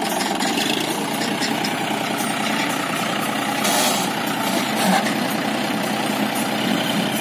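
John Deere 5204's three-cylinder diesel engine running steadily at low revs while it holds its trolley body tipped up to dump soil, with a short hiss about halfway through.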